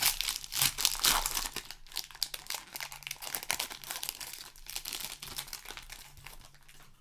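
Plastic-foil wrapper of a Magic: The Gathering set booster pack being torn open and crinkled by hand, a dense crackling that is loudest in the first couple of seconds and dies down toward the end.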